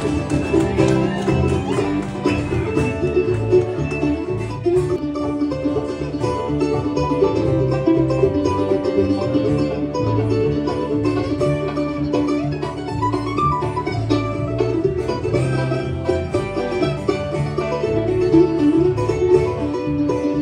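Country band playing an instrumental passage with plucked strings over a steady beat, no singing.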